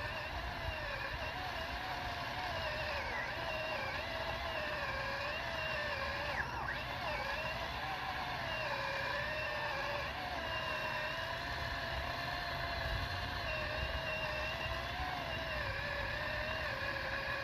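Worx WG323 20V cordless pole saw running, its electric motor and chain giving a steady whine whose pitch keeps dipping and recovering as the chain is loaded in a cut.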